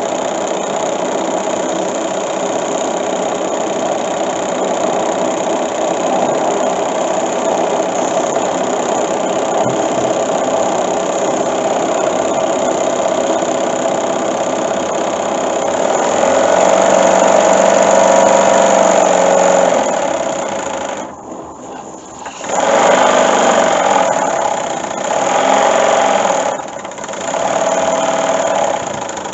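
A small model oscillating two-cylinder steam engine runs fast and steadily, a continuous rapid chuffing with steam hiss. It gets louder about sixteen seconds in, drops away briefly around twenty-one seconds and again near twenty-seven, then comes back in surges.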